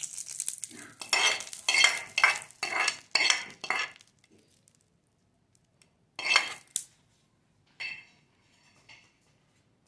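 A short hiss as the hot tadka oil with cumin seeds is poured onto yogurt raita, then a steel spoon scraping and clinking against the small tempering pan and the ceramic dish in a quick run of strokes for about three seconds. A few more separate scrapes follow, the loudest about six seconds in.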